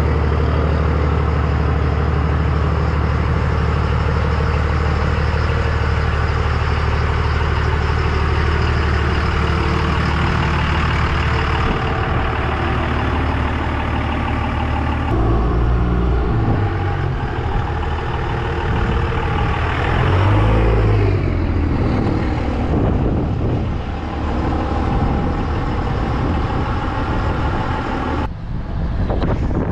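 2001 Dodge Ram's Cummins turbo-diesel inline-six running at a steady idle, then changing pitch about halfway through as the truck pulls away and drives off.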